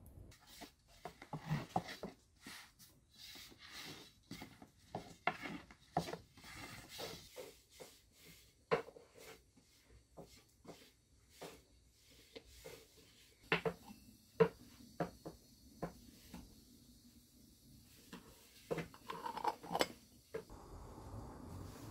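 Dough being worked on a wooden board: a thin wooden rolling pin knocking, tapping and rolling, with rubbing in between. Near the end, metallic clinks of a kettle being handled on a stove.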